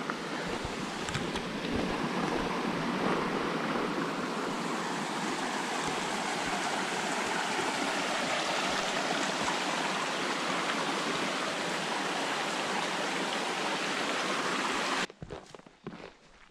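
Stream water rushing steadily over rocks. It cuts off suddenly near the end, and a few faint knocks follow.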